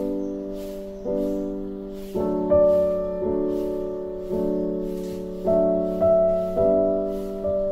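Soft piano background music: slow chords struck about once a second, each left to fade, with faint high ticks about twice a second.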